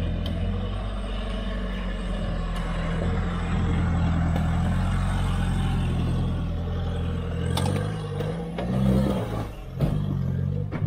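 Mitsubishi Pajero 4WD's engine pulling as it climbs a rock step, running steadily at first, then revving up and down near the end as the tyres spin in the loose dirt, with a few sharp knocks.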